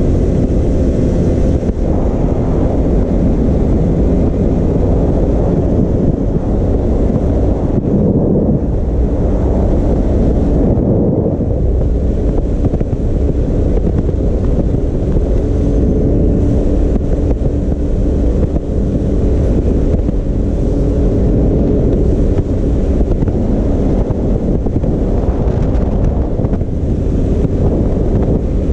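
Can-Am Maverick X3 Turbo RR side-by-side driving along a gravel road. Its turbocharged three-cylinder engine runs steadily under heavy wind buffeting on the onboard microphone.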